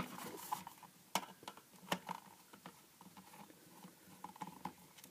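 Faint, scattered clicks and taps from an impulse sealer's plastic case being handled, with a screwdriver set into one of its screws near the end.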